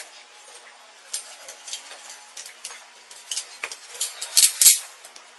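Metal handcuffs clinking and rattling as they are handled, in scattered light clicks with a louder cluster of clacks about four and a half seconds in.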